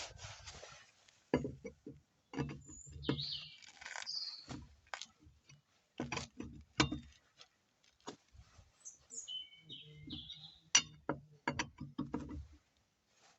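Intermittent sharp clicks and knocks, with small birds chirping briefly in between.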